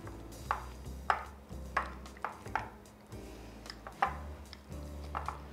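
Cooked potatoes being mashed in a bowl, with about seven sharp, irregular knocks of the utensil against the bowl, over steady background music.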